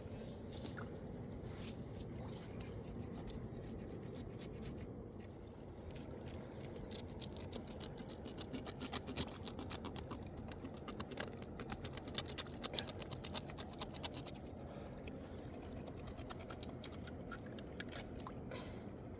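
Steady rushing of a mountain river, with a run of rapid scratching and clicking sounds near the middle.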